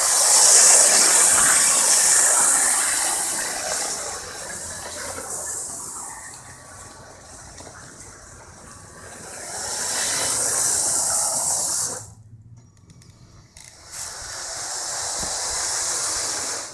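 Model train driven by two LEGO 9V motors running fast along a wooden track, making a loud high hissing rush. It swells and fades as the train passes close by, cuts off sharply about twelve seconds in, then rises again near the end.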